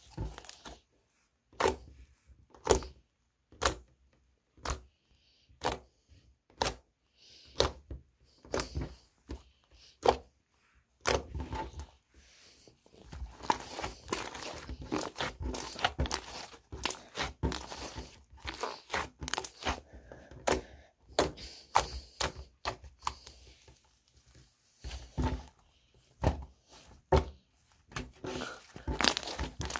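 Gold glitter slime squished and pressed by fingers, making clicks and pops. Single pops come about once a second at first, then a dense crackling run of clicks starts about a third of the way in, with a brief pause near the end before the clicking resumes.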